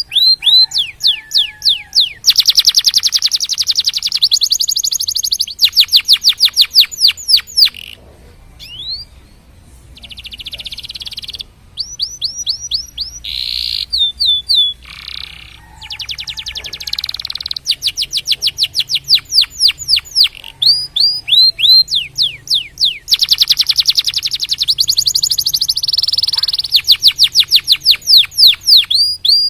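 Domestic canary singing: fast trills of high, downward-sweeping whistled notes strung into rolls, breaking off briefly twice before starting again.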